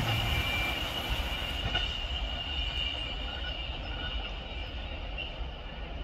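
Empty flat wagons of a freight train rolling away over the rails, the wheels squealing with steady high tones over a rumble that fades as the train draws off.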